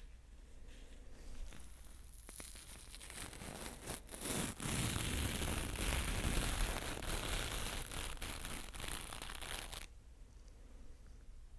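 Close-miked ASMR scratching rustle: a few scattered light clicks, then a dense scratchy rustling from about four seconds in, stopping abruptly near the end.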